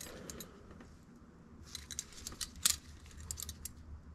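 Small metal jewelry (rings, hoop earrings and bracelets) clinking and jingling lightly as it is handled in a plastic box, with a cluster of clinks about halfway through.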